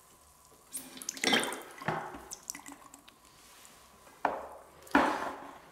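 Water splashing and dripping from the end of an airless paint sprayer hose into a plastic bucket in several short sudden spurts, each fading quickly.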